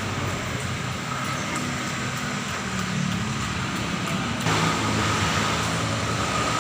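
Printing machine running with a steady mechanical whir and a faint high steady tone; about four and a half seconds in, a louder hiss joins it.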